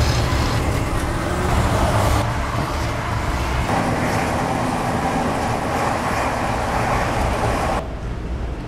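Steady road noise of a car driving on a highway bridge in traffic: low tyre and engine hum with rushing wind noise. Near the end it cuts off abruptly to a quieter ambience.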